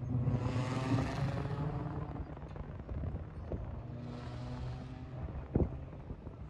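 A motor vehicle's engine running steadily, with a hiss that swells and fades twice, and a single sharp knock about five and a half seconds in.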